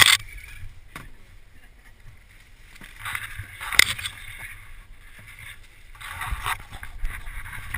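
Leaves and twigs rustling and scraping against the camera and the inflatable kayak as it is pushed through overhanging brush, in spells, with a sharp knock near four seconds in.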